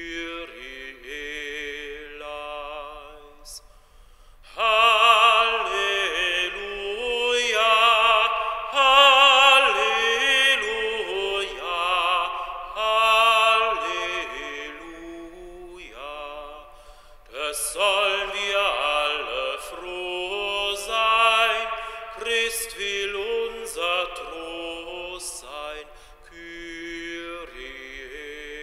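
A classically trained voice singing in operatic style with wide vibrato, in long held notes and flowing phrases; it grows louder about four and a half seconds in.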